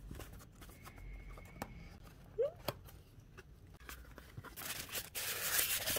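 Cardboard gift box handled and opened, with scattered light taps and clicks. About four and a half seconds in, a styrofoam insert starts scraping and rubbing against the cardboard as it is pulled out of the box.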